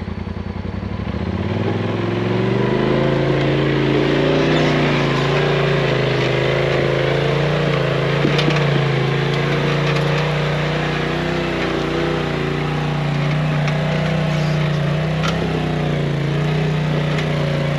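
Polaris RZR Turbo S side-by-side's engine revving up from idle over the first couple of seconds, then held at steady high revs with small rises and dips as it crawls up a rocky trail. A few sharp knocks ring out along the way.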